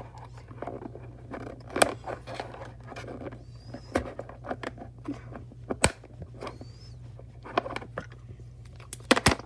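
Small plastic fidget-toy pieces handled and pushed together, with irregular sharp clicks and knocks and rustling between them. There is a quick run of loud clicks near the end. A steady low hum sits underneath.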